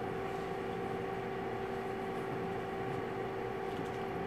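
Steady room hum: an even mechanical drone with two constant tones over a low noise floor, unchanging throughout.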